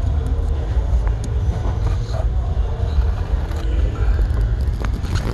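Steady low rumble, with faint rustling and light plastic clicks as the cabin air filter is slid out of its housing behind the glove box.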